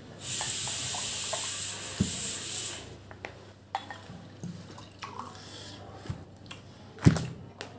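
Whisky poured from a glass bottle into a glass tumbler, a steady splashing hiss for a little over two seconds, then a shorter, fainter pour into a second glass. Small clinks follow, and near the end the bottle is set down on the table with a sharp knock.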